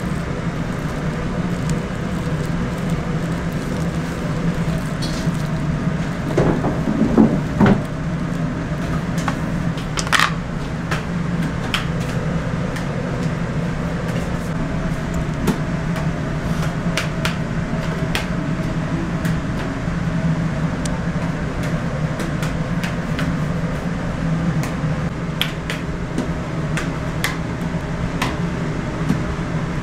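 Kitchen work over a steady low machine hum: scattered clicks, knocks and clatter of utensils and dishes being handled, with a louder burst of knocking and scraping about seven seconds in and a sharp clack about ten seconds in.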